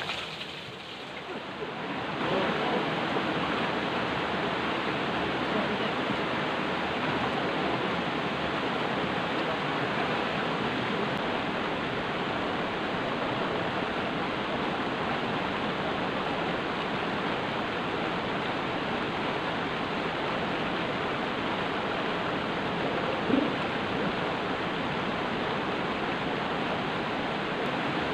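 Steady rush of a small river waterfall tumbling over rocks, an even continuous noise that swells up about two seconds in, with one brief louder bump near the end.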